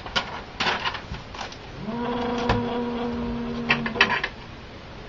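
A mobile phone buzzing with an incoming call: one steady buzz of about two seconds, starting about two seconds in. Paper rustles and clicks of handling come before it, and sharp clicks near its end as the phone is picked up.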